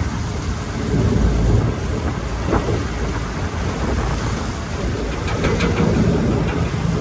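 Wind rushing over the microphone and sea water washing past a car ferry, over a low rumble from the ferry's engines, with a brief splash-like hiss about five seconds in.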